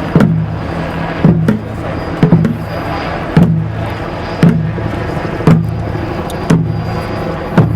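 A drum beaten slowly and steadily, about one stroke a second with an occasional double stroke, over a steady low hum.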